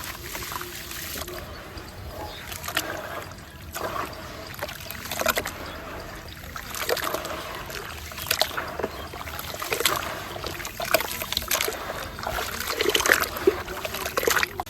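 Small pieces of soft concrete crumbling and dropping into water, with uneven crackles, small splashes and trickling.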